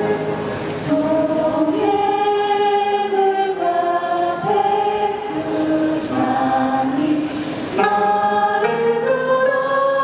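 A group of women singing together in long held notes over a stage sound system, with Korean gayageum zithers accompanying.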